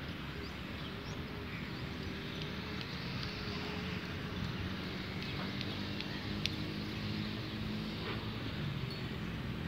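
Outdoor ambience with a steady low hum from a distant motor, and a few faint short high ticks.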